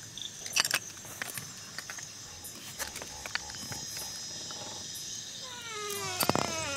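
Crickets and other night insects trilling steadily, with a few sharp knocks from footsteps on wooden stairs. Near the end an animal begins calling in a run of falling notes.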